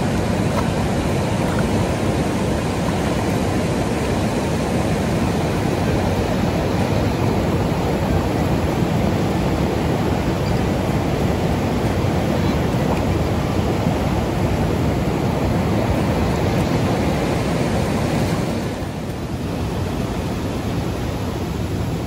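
River water rushing over rocks: a loud, steady rush that drops a little about eighteen seconds in.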